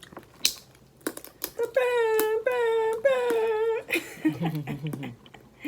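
Three short air-horn blasts, the dancehall-style 'Jamaican air horn', each held at one steady pitch for about half a second.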